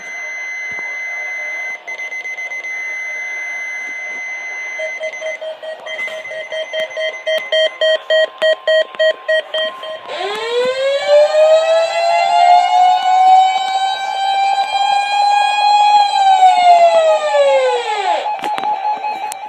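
A sequence of alarm tones: a steady high-pitched tone, then rapid pulsing beeps about halfway in, then a siren that winds up, holds and winds back down, with a pulsing tone over it.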